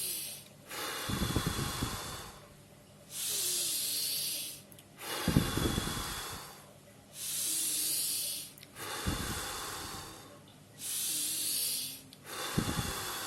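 A man doing pranayama breathing, about four full breath cycles. Each is a long hissing deep inhale through the nose, then a forceful exhale through the mouth with the navel pressed in, which has a deeper rushing sound. One breath cycle takes roughly every four seconds.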